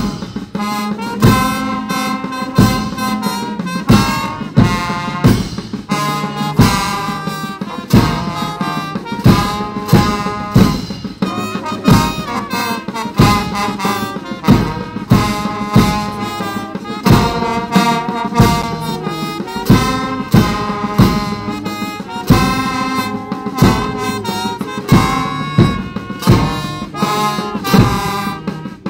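Instrumental music with a steady drum beat and a sustained reedy melody line, no singing.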